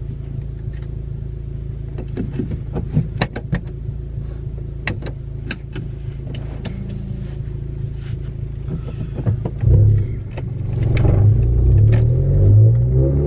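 Straight-piped turbocharged 10th-gen Honda Accord engine running at a steady low drone, with scattered sharp clicks. About ten seconds in it gets louder and rises in pitch as the car accelerates.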